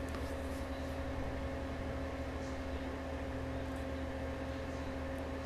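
Steady electrical hum with a faint even hiss, a few constant tones and no distinct events: the background noise of the narration recording.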